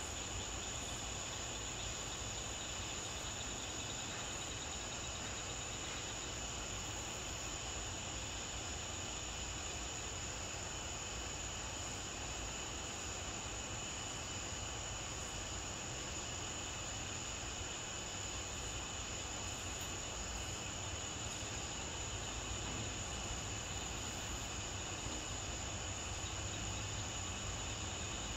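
Steady chorus of night insects such as crickets, a continuous high-pitched trilling that does not change.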